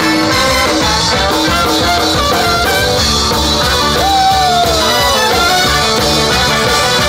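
Live band music with horns (trombone and saxophone), a drum kit and singers on microphones, playing loud and steady. About four seconds in, a long note slides down in pitch.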